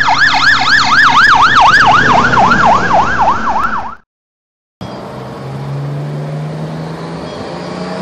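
Fire engine's electronic siren in yelp, a fast rising-and-falling whoop about three times a second, cut off sharply about four seconds in. After a short silence, a quieter steady vehicle engine drone follows, rising a little in pitch.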